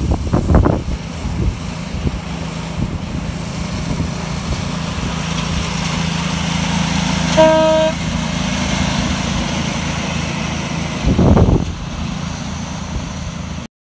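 Small petrol engine of a 7.25 inch gauge miniature locomotive running steadily as it drives past, getting louder as it comes close, running normally on test after a repair to its jammed lay-shaft sprocket. The loco's horn gives one short toot about halfway through, with a louder rumble about a second in and again near the end.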